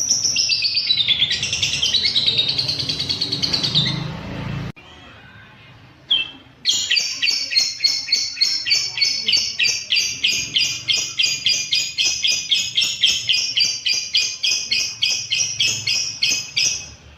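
Lovebird singing: a fast, dense chattering trill that stops abruptly about five seconds in, then after a short gap a long, steady series of sharp, high chirps at about four to five a second.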